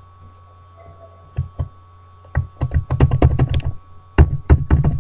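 Computer keyboard and mouse clicking: two taps, then two quick runs of clicks like fast typing.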